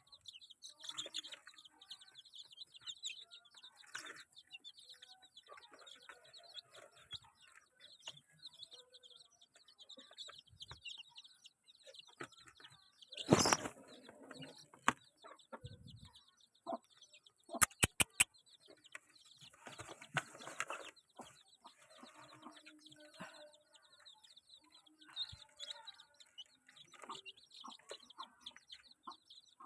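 Village chickens clucking and flapping their wings, with scattered small sounds of movement. The loudest moment is a sudden short noisy burst about 13 seconds in, and a few sharp clicks follow about 18 seconds in.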